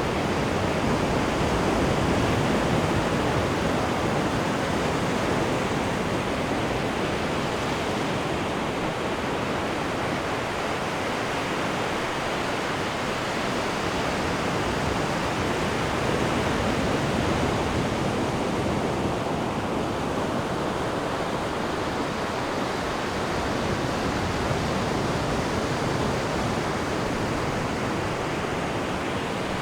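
Ocean waves breaking and washing on a sandy beach below sea cliffs: a continuous rushing surf that rises and eases slowly.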